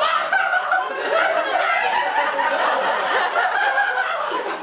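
Audience laughing, many voices chuckling and laughing together without a break.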